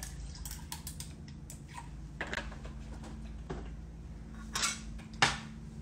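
Scattered light clicks and knocks of bar tools, a juice carton and bottles being handled and set down on a countertop, the loudest two near the end, over a faint steady hum.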